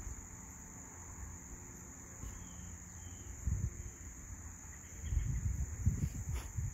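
Steady high-pitched drone of crickets, with irregular low rumbling bumps and rustling growing louder from about five seconds in.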